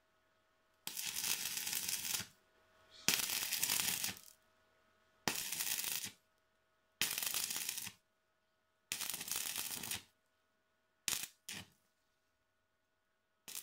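Stick (arc) welding on the steel cutter bar of a walk-behind tractor sickle mower: a crackling, sizzling arc in short tack-weld bursts of about a second each, six of them with pauses between, and two very brief arc strikes near the end.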